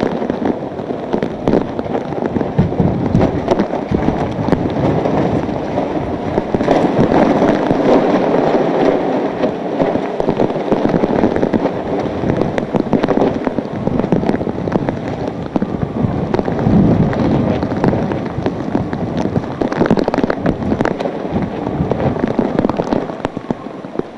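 Hurricane-force wind and driving rain, a loud, continuous rush that surges in gusts, full of sharp crackles and pops.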